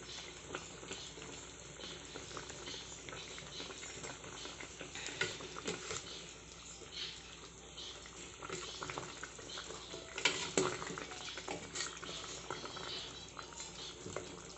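Sinigang broth simmering in a metal pot, with steady bubbling, while a ladle stirs and now and then clinks against the pot. The loudest clinks come a little past halfway.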